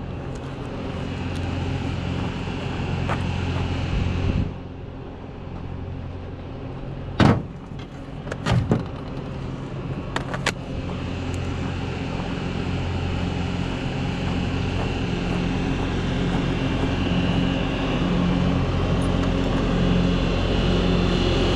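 Bobcat compact track loader's diesel engine running steadily, its hum growing louder toward the end. A few sharp metal clacks between about a third and halfway through as sockets and an impact driver are handled.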